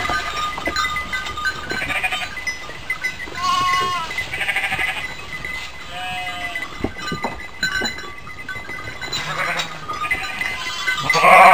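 Hair sheep bleating: several separate bleats with a quavering pitch, the loudest one near the end.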